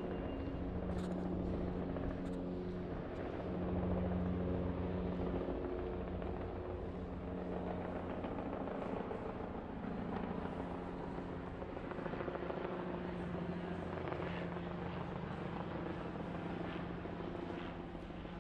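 Helicopter flying overhead: a steady drone of engine and rotor, a little louder about four seconds in.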